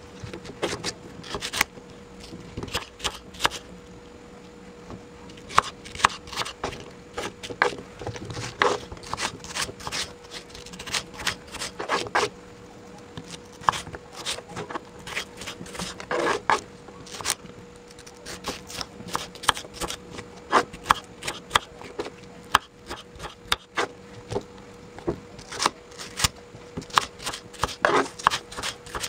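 A small kitchen knife chopping apple into cubes on a wooden cutting board: irregular runs of sharp taps and knocks as the blade cuts through and hits the board, over a faint steady hum.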